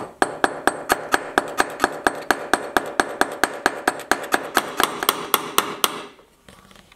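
Small hammer tapping a rivet down to spread its head, riveting a brass plate to a silver cuff. The taps come fast and even, about four or five a second, each with a metallic ring, and stop about a second before the end.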